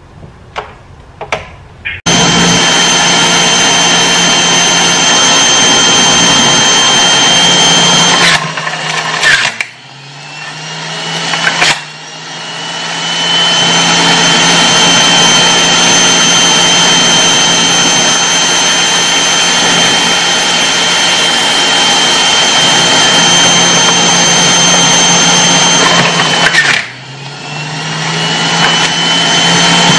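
Electric juicer motor running loudly with a steady high whine while fruit and vegetables go through it, starting abruptly about two seconds in. Twice the motor sound drops away and then winds back up in pitch over a couple of seconds.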